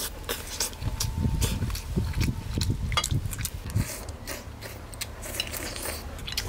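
A person eating close to the microphone: slurping soup-soaked rice and pea-shoot leaves from a bowl and chewing, with many small irregular clicks.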